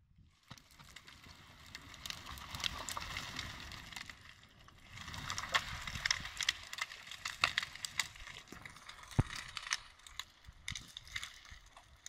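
Dry twigs and branches rustling and crackling, with many scattered sharp snaps and clicks over a low rumble.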